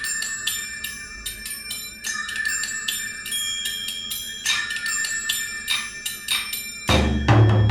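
Music played through an Aosibao M18 class AB tube amplifier and its speakers: quick, bell-like mallet-percussion notes over a held, wavering high tone. A heavy bass beat comes in about seven seconds in.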